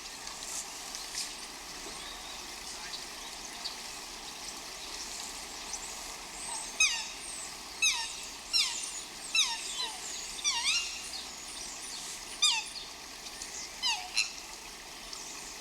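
An animal calling: a run of about eight short calls, each dropping steeply in pitch, coming roughly every second through the middle of the stretch, over a steady outdoor hiss.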